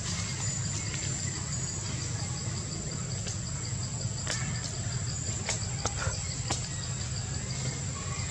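Insects droning in one steady high tone, over a low, even background rumble, with a few sharp clicks in the second half.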